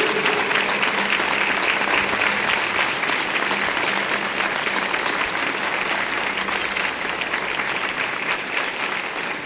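Crowd applauding: a long round of hand clapping that slowly tapers off.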